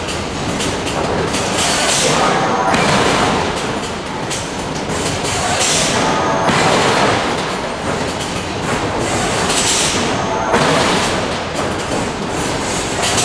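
Loud, continuous heavy-machinery noise in a steel forge shop, swelling and easing about every three to four seconds.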